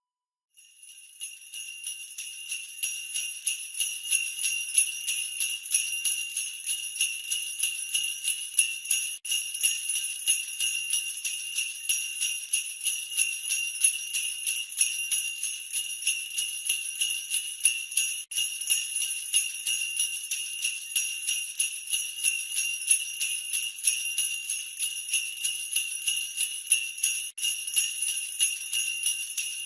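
Jingle bells shaken continuously in a fast, even rhythm, fading in over the first few seconds after starting about half a second in.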